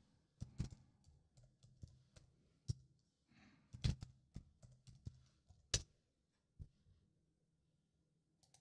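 Faint computer keyboard typing: scattered, irregular keystroke clicks as a password is entered. The clicks stop with about two seconds left.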